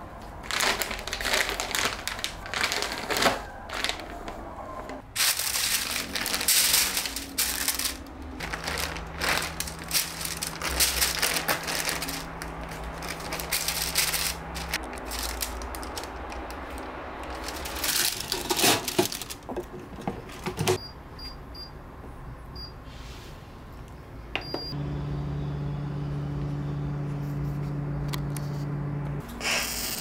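Plastic frozen-food packaging crinkling and rustling, with clicks and taps as frozen chicken wings are handled onto parchment paper. Later come a few short electronic beeps and then a steady low hum as an air fryer is set and starts running.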